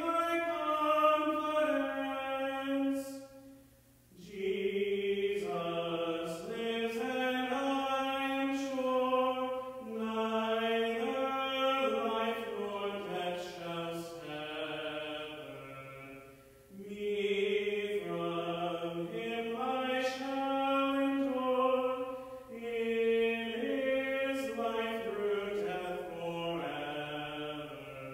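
A single man's voice singing a slow melody unaccompanied, in long phrases broken by short breaths about four, sixteen and twenty-two seconds in.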